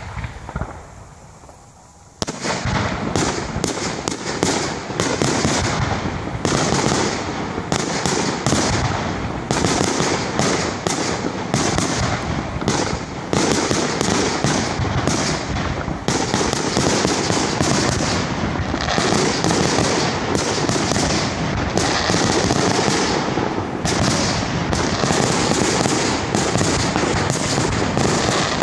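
Fireworks display: aerial shells bursting, a couple of isolated bangs at first, then from about two seconds in a dense, near-continuous barrage of bangs in rapid succession.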